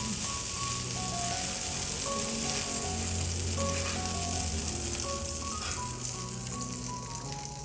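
Margarine sizzling on a hot non-stick grill pan as a metal spoon spreads it around, with quiet background music underneath. The sizzle dies down toward the end.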